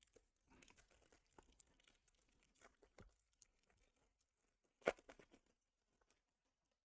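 Faint crinkling and tearing of a foil Pokémon TCG booster pack wrapper being opened, scattered small rustles, with one sharper snap about five seconds in.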